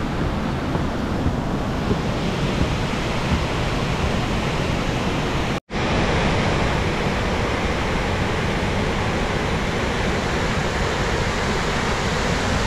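Steady rush of a tall waterfall, with wind buffeting the microphone over the first half. The sound cuts out for an instant about halfway through, then the rushing water runs on evenly.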